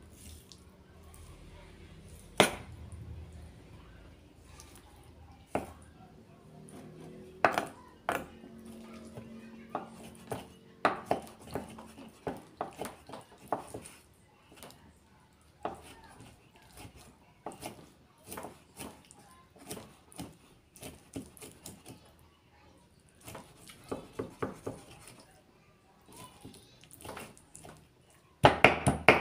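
Kitchen knife chopping raw chicken breast on a wooden chopping board, mincing it by hand. There are a few separate knocks at first, then quick runs of chopping strokes, and a louder, fast run near the end.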